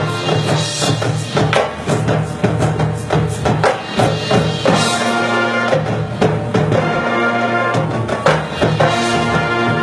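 Marching band playing: sustained wind and brass chords under frequent sharp percussion hits.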